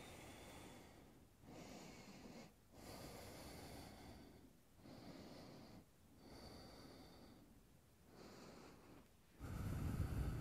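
Faint human breathing: a series of quiet breaths in and out, each about a second long, as the body rolls up slowly from a forward fold, with a louder breath near the end.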